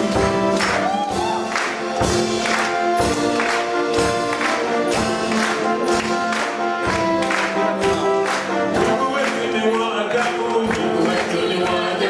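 Live gospel music: a children's choir singing with a band, a drum kit keeping a steady beat under keyboard chords.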